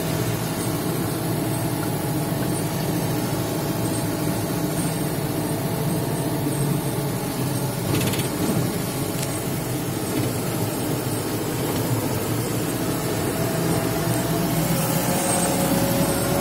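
Steady engine and road noise of a moving vehicle, heard from inside its cabin while it drives along.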